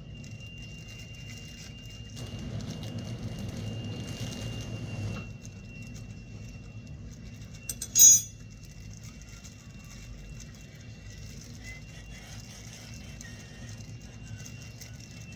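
Kitchen handling sounds over a steady low hum and a faint high whine: a rustling stretch of a few seconds, then one short, sharp clatter about eight seconds in, the loudest moment, as a spice container is worked open.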